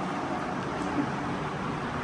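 Steady background hiss of room noise, with one faint tap about a second in.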